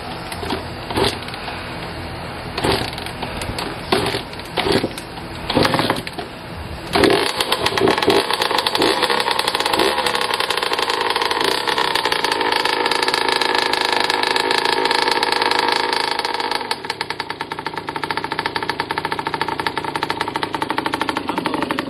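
The freshly rebuilt two-stroke single-cylinder engine of a 2007 Honda CR85R dirt bike is being kick-started. It sputters and pops through several kicks, then catches about seven seconds in and runs hard at high revs. About sixteen seconds in it drops to a lower, uneven, pulsing idle, still running cold and needing to warm up.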